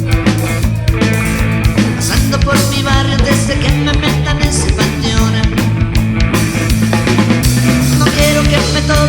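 Rock music with a full band playing: drum kit, bass and guitars, with a fast, steady beat.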